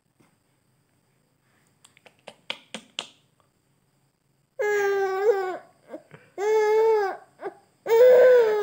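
Baby vocalizing: a few faint mouth clicks and breaths, then three long, loud, high-pitched calls of about a second each, the last one with a wide-open laughing mouth.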